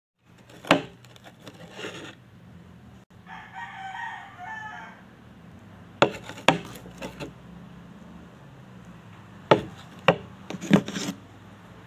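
A rooster crows once, a pitched call lasting about a second and a half a few seconds in. Around it come sharp knocks and taps, about eight in all, as a plastic drink bottle and a plate are handled on a table.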